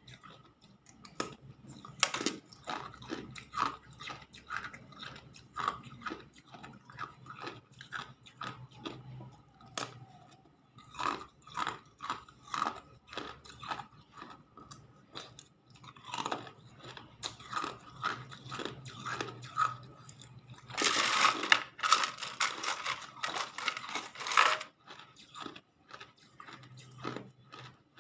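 Hard ice being bitten and chewed: a steady run of sharp cracks and crunches, with a denser, louder stretch of crunching about three quarters of the way through.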